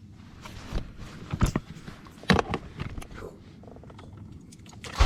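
A few scattered clicks and knocks, then right at the end the 2007 Honda Accord's 2.4-litre four-cylinder engine starts from cold.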